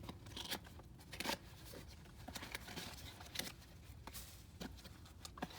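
Irregular rustling and sharp clicks as light fixtures and their wrapping are handled and unpacked by hand.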